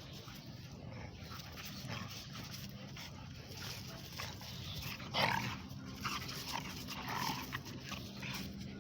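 A dog making a series of short cries, more frequent in the second half, the loudest a little past halfway.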